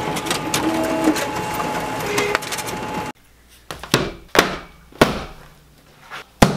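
A large office printer running as it feeds out printed pages: a steady mechanical whir with many small clicks and short whining tones. It cuts off abruptly about three seconds in, and four sharp knocks follow with pauses between them.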